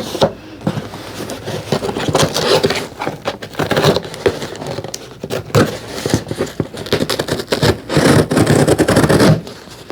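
Packaging being handled and opened: irregular scraping, crackling and rustling with many small knocks, busiest near the end.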